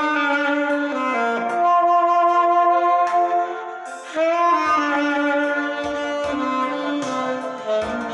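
Saxophone playing a slow melody of long held notes over a backing track, sliding up into a new note about four seconds in.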